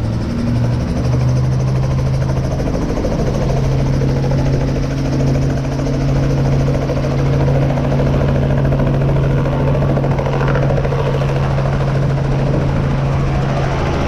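Helicopter running steadily: a constant low engine hum with the fast beat of the rotor.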